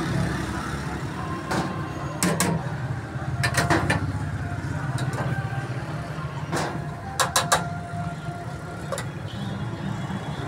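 Steady low rumble of street traffic, with several sharp clinks and clatters of steel dishes and plates being handled, a quick run of them about seven seconds in.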